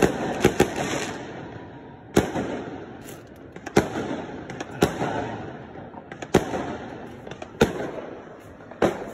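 Fireworks going off: sharp bangs roughly once a second, three in quick succession at the start, each trailing off in a rolling echo, over a continuous din of further fireworks.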